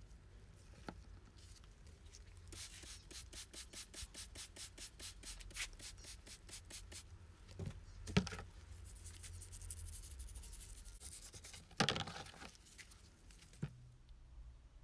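Quick back-and-forth rubbing strokes, about five a second, then a knock, a few seconds of steady rubbing, and a second knock: hand work on metal parts, rubbing or scrubbing.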